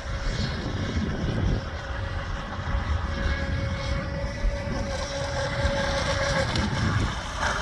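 Pro Boat Stealthwake R/C boat with a wire drive, its electric motor giving a steady whine as the boat runs on the water, fading out about six and a half seconds in, over a low rumbling noise.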